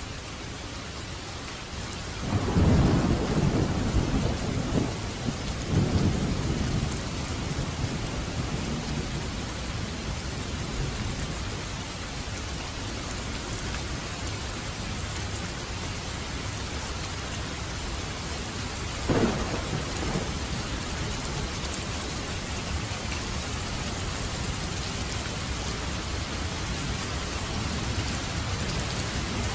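Steady rain hissing, with thunder: a low rolling rumble begins about two seconds in and swells again around six seconds, a sharp thunderclap cracks about two-thirds of the way through, and more rumble builds near the end.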